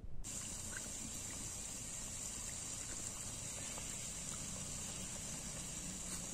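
Steady high-pitched drone of insects, with low bubbling from a pot of curry simmering over a wood fire.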